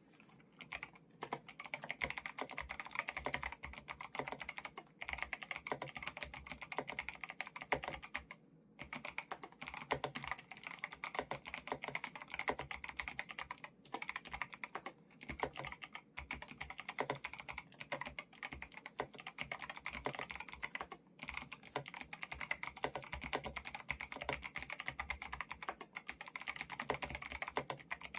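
Continuous typing on an 8BitDo retro mechanical keyboard with clicky Kailh Box White V2 switches: a fast, dense run of sharp key clicks, broken by a few short pauses.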